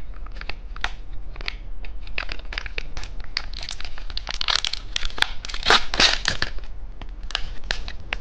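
Plastic snack wrapper crinkling and crackling as it is handled and torn open, in a run of sharp crackles that grows denser and louder about halfway through.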